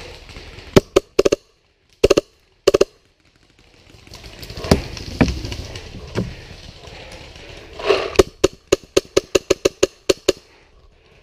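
Paintball markers firing: a few sharp pops in the first three seconds, then a rapid string of about a dozen shots, roughly five a second, near the end. In between come duller knocks and rustling.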